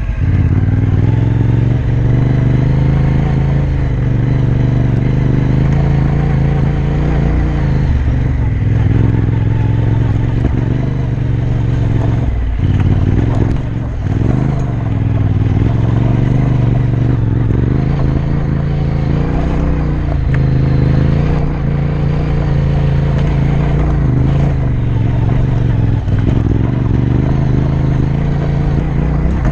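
Yamaha Ténéré 700's parallel-twin engine running at low, steady revs while the bike rides over a loose, rocky dirt track, with stones knocking and clattering under the tyres. The revs dip briefly about halfway through.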